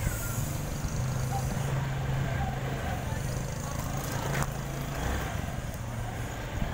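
Motorcycle engine running at a steady speed while riding, a low hum over rumbling noise.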